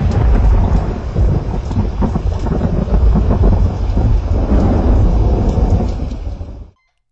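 Thunderstorm sound effect: loud rolling thunder over steady rain, cutting off abruptly near the end.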